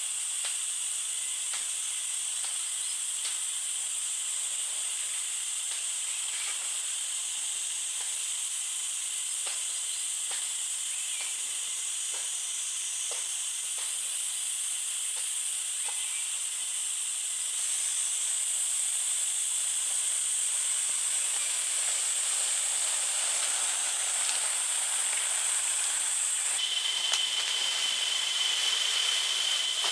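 Steady high-pitched buzzing of a forest insect chorus, such as cicadas, with faint scattered ticks. It grows slightly louder partway through, and a second, lower steady note joins near the end.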